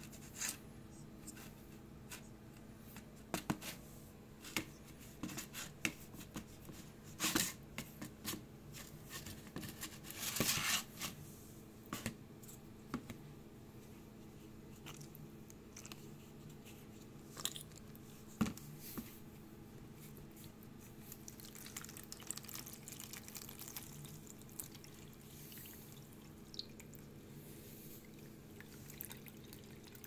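Dirty water and clumps of sludge draining from a washing machine's hose into a plastic tub, dripping and splashing, with scattered clicks and knocks against the plastic and a brief louder burst about ten seconds in. A steady low hum runs underneath.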